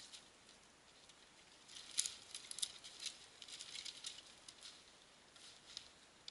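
Faint footsteps crunching in snow with dry brush and twigs crackling as a person walks through snowy woods: a run of small crackles from about two seconds in, and a few more near the end.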